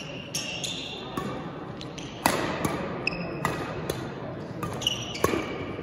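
Badminton rackets striking shuttlecocks: sharp pings at irregular intervals, about one or two a second, mixed with short sneaker squeaks on a gym floor.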